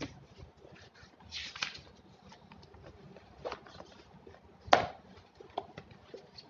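Notebooks and books being handled and pulled out of a backpack: paper and cover rustling with scattered light taps, and one sharp knock a little past halfway.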